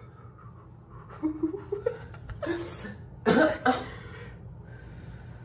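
A woman coughs, a short sharp pair of coughs a little past the middle, after a brief hum that rises in pitch.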